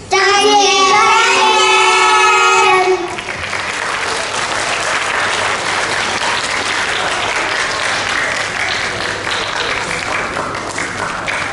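Voices hold one long, wavering call for about three seconds, then an audience applauds steadily.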